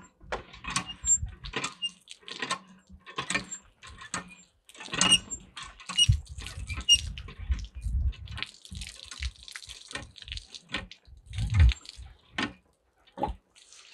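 Water poured from a bottle and splashed, among irregular knocks and rustling from handling the bottle.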